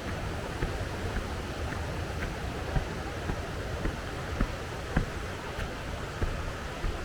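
Mountain stream rushing, full after a night of rain, with light footsteps on a rocky trail about twice a second.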